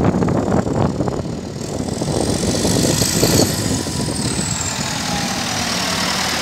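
Ford 7610 tractor's four-cylinder diesel engine running at low revs as the tractor drives slowly and turns, louder and rougher in the first second.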